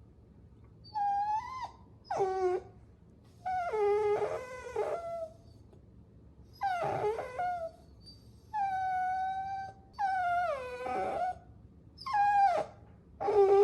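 Puppies whining: a run of about eight high-pitched cries, each half a second to a second and a half long, several sliding down in pitch at the end, some overlapping, with short quiet gaps between.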